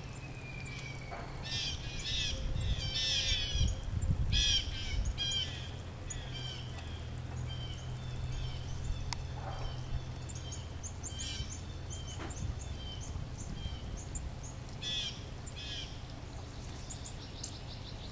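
Northern cardinals calling: many short, sharp chirps, coming in a rapid flurry a couple of seconds in and again near the end, over a low steady hum.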